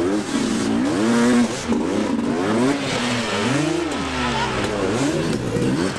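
Enduro dirt bike engine revved hard over and over, its pitch rising and falling in quick, irregular swings as the throttle is opened and shut.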